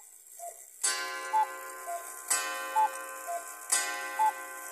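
A Majak (Mayak) cuckoo clock calling twelve o'clock. Each 'cu-ckoo' is a higher note falling to a lower one, repeating about every second and a half, and each call is preceded by a clack of the mechanism.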